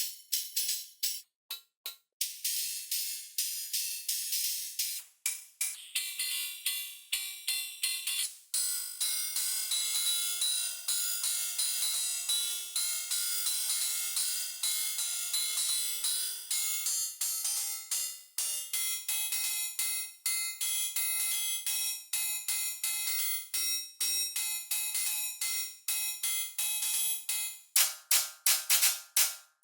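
Electronic drum-machine loop of fast hi-hats and percussion run through Ableton effect racks, with all the bass cut away. The beat starts thin, fills out with ringing pitched tones about eight seconds in, and turns into louder, sharper hits near the end.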